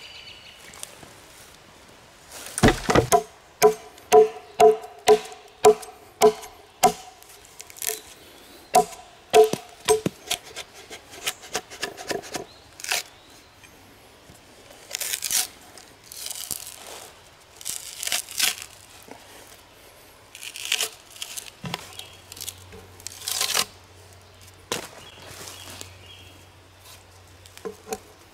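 Hand-tool work on logs. First comes a run of sharp wooden knocks, about two a second, each ringing briefly with a pitch. Later come scattered, scratchy hatchet strokes shaving and peeling the bark off a log.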